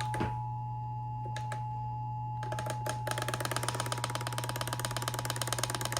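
Emergency alert tone: a steady single tone over a low hum, joined about two and a half seconds in by a fast, even run of clicks.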